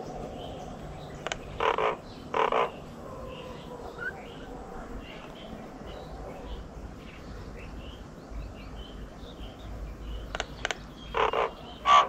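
Short, rough animal calls in two pairs, one pair a couple of seconds in and one near the end. Faint, continuous high chirping runs beneath them.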